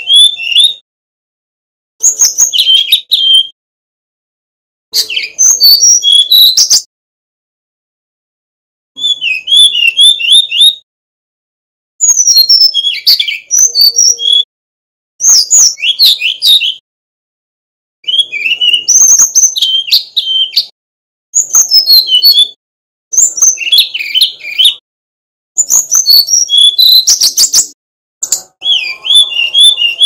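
Male brown-chested jungle flycatcher singing: about eleven short bursts of fast, flute-like whistles and trills that glide up and down in pitch, each burst one to two seconds long, with brief pauses between them.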